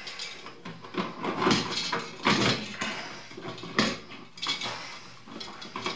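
Wall switches and their stiff electrical wires being handled at an open switch box: irregular rustling with a few sharp clicks and rattles as the switches' metal parts knock together.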